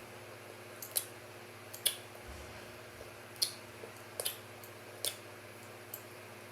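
Poppet bubbles on a fidget spinner being pressed and popped, about six short sharp pops at irregular intervals over a faint steady fan hum.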